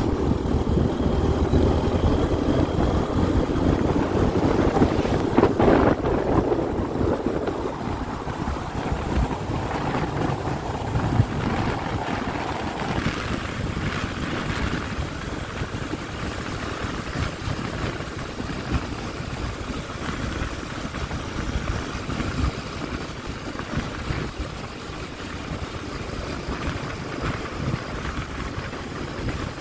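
Yamaha Crypton S small motorcycle riding along at road speed, its engine running steadily under wind buffeting the microphone, a little louder in the first several seconds.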